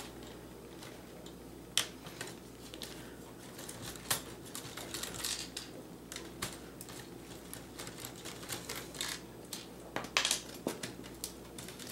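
Faint, irregular clicks and ticks of a 3/16-inch nut driver unscrewing threaded standoffs from a laptop's docking port.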